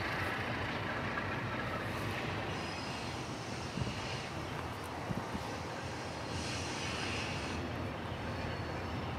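Diesel engine of an MLW RS18 locomotive (an ALCO 251 V12) running at low throttle as the engine slowly approaches: a steady low rumble.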